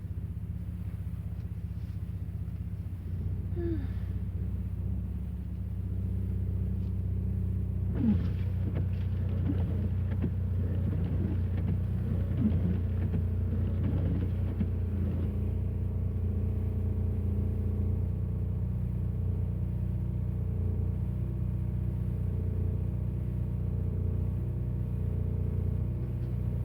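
Car engine running with a steady low drone, heard from inside the car. A cluster of short squeaks and knocks comes over it from about a third of the way in to about halfway through.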